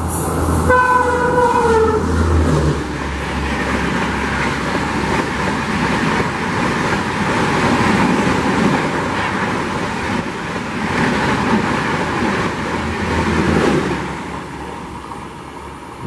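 A WAP-5 electric locomotive sounds one short horn note, its pitch dipping slightly, about a second in as it runs through the station, then its passenger coaches rush past at speed with a steady rolling roar of wheels on rails that fades near the end.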